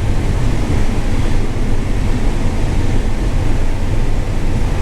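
John Deere combine running while harvesting corn, a steady low engine and threshing rumble heard from inside the cab.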